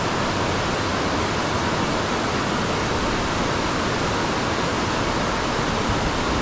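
Steady, loud rushing noise that does not change, with no clicks or rhythm in it.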